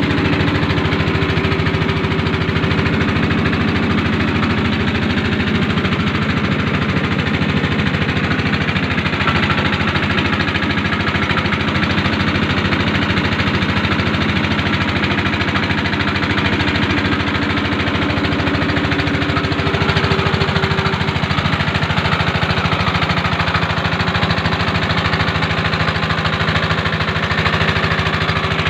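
Small air-cooled single-cylinder petrol engine mounted inboard in a boat, running steadily under way, heard up close with a fast, even beat.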